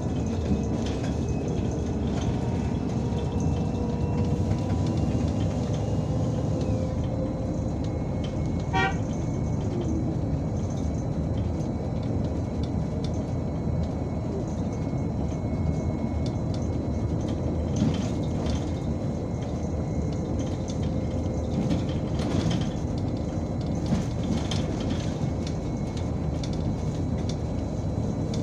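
Cabin noise of an Irisbus Citelis 12M city bus under way. Its Iveco Cursor 8 diesel engine and Voith automatic gearbox run with a steady rumble and road noise. A thin whine steps down in pitch about seven seconds in, and there are a few short knocks and rattles.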